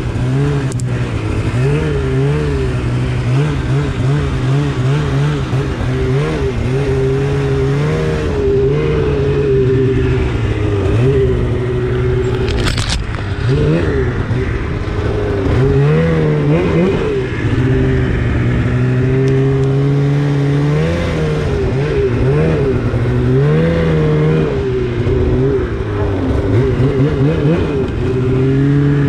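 2016 Polaris RMK 800 snowmobile's two-stroke twin engine, breathing through an aftermarket Bikeman exhaust can, running under way and revving up and down over and over with the throttle. A brief sharp click cuts through about thirteen seconds in.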